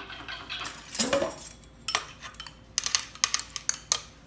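Utensil scraping and clinking against a mixing bowl as softened butter is scooped in: one scrape about a second in, then a series of sharp clinks.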